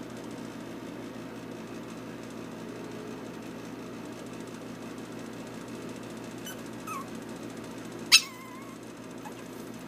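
Yorkshire terrier puppies giving a faint short squeak about seven seconds in, then one sharp, loud yelp about a second later, over a steady low background hum.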